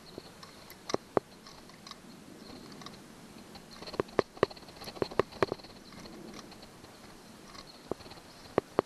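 Caulking gun's plunger rod and trigger mechanism clicking as it is set up on a loaded cartridge: sharp clicks, singly and in quick runs of two or three, about eleven in all.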